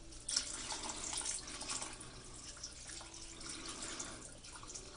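Water poured from a drinking glass into a slow cooker crock, splashing and trickling onto chopped vegetables and meat already sitting in water. The pour starts about a third of a second in and thins out near the end.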